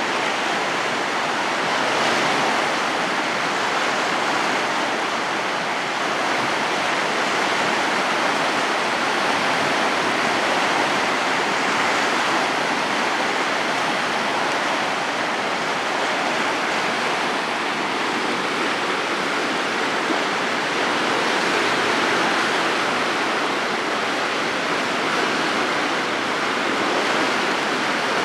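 Flash-flooded creek of fast, muddy brown water rushing and churning over submerged debris: a steady, unbroken water noise.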